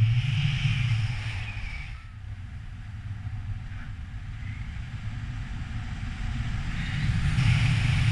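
Wind rushing over the camera microphone on a paraglider in a steep spiral dive, a rumbling noise that drops about two seconds in and builds again near the end.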